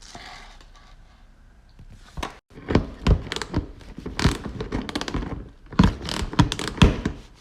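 Irregular series of sharp knocks and clicks, several a second, from tools and plastic fasteners as the push-in clips under the front bumper are worked loose. It starts about two and a half seconds in, after a sudden cut-out.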